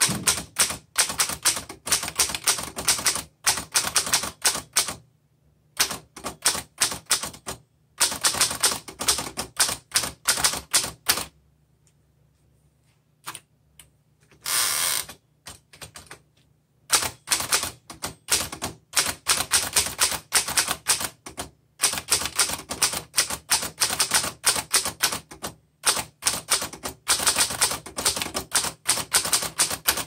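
A 1927 Underwood Standard four-bank typewriter being typed on: quick runs of type bars striking the platen, broken by a few pauses. A short rasping noise comes about halfway through, and steady typing resumes after it.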